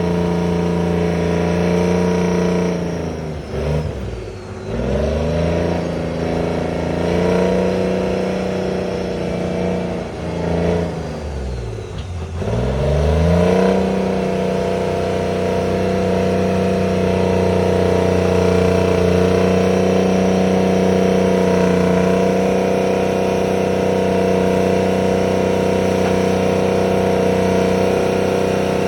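Terex 82-20 crawler bulldozer's diesel engine running hard, twice dropping in pitch and climbing back up, about three and eleven seconds in, then holding steady at high revs.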